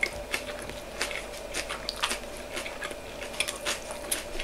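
Close-up chewing of a mouthful of boiled garden slug wrapped in lettuce, with many small, irregular crunches from the crisp leaf.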